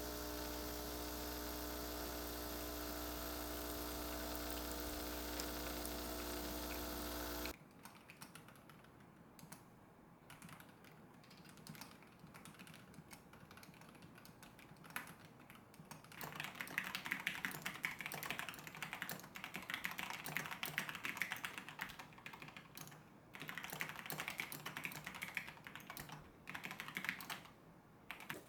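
A steady hum with several held tones that cuts off abruptly about a quarter of the way in. Then scattered key clicks give way to fast typing on a mechanical keyboard, in two runs with a short break between.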